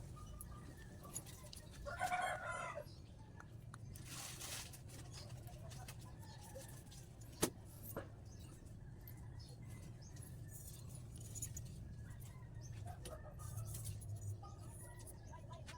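Chickens clucking, with a rooster crowing in the background over a low steady hum. The clearest call comes about two seconds in, and fainter calls follow in the second half. A single sharp click sounds about halfway through.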